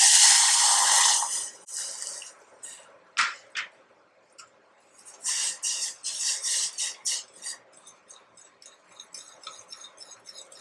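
Milk poured into a hot stainless steel saucepan of ghee-roasted semolina, hissing and splashing loudly for about a second and a half. Then a steel spoon stirs and scrapes around the pan in quick strokes that turn into lighter, faster clinks near the end.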